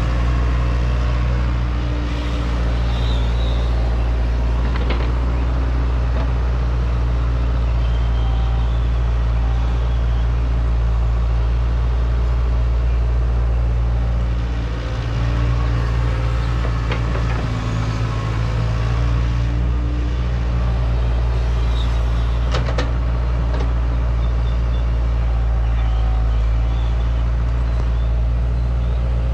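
Hydraulic excavator's diesel engine running steadily while it digs, with a few short knocks from the working machine. The engine note dips briefly about halfway through.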